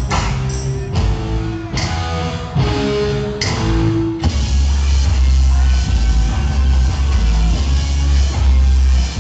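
Loud live rock music from a band on stage. A deep bass tone takes over about four seconds in.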